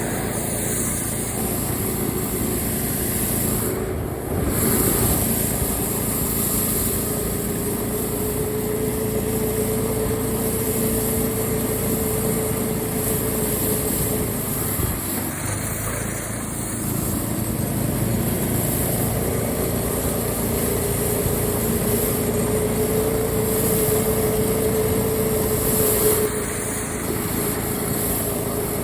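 Small engine of a homemade tracked snow sled running steadily. Its pitch rises slowly and eases off twice as it is throttled up and back.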